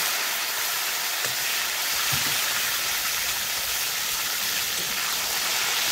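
Freshly added chopped tomatoes frying in hot oil in a kadai, giving a steady, loud sizzle.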